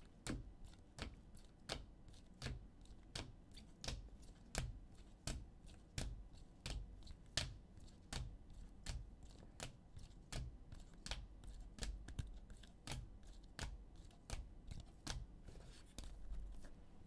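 Trading cards in rigid clear plastic holders being flipped one by one off a stack, each holder clicking against the next: a steady run of sharp plastic clicks, about two to three a second.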